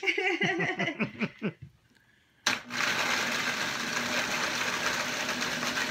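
Vitamix blender switched on about two and a half seconds in, running steadily at low speed as it grinds broken graham crackers and sugar into crumbs.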